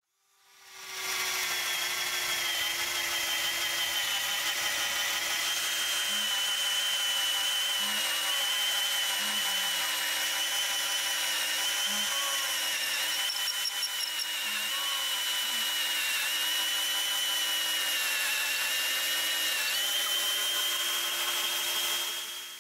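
Worx WX176L switch driver, a 20-volt cordless drill with a brushed motor, running steadily as a twist bit bores into a wooden board. It fades in over the first second, and its motor whine dips slightly in pitch now and then as the bit takes load.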